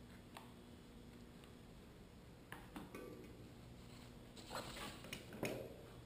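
Old hand tools being handled and sorted in a shipping box: a few light clicks and knocks, then two short bursts of rustling near the end.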